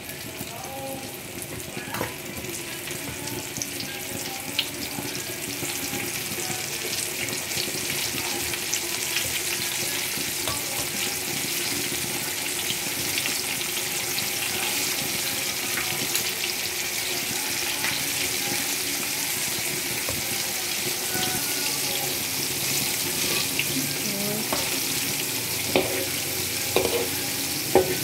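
Flour-coated chicken pieces deep-frying in hot oil in a wok: a steady sizzle and crackle that builds over the first few seconds, then holds. Near the end come a few sharp knocks of a metal spatula against the wok.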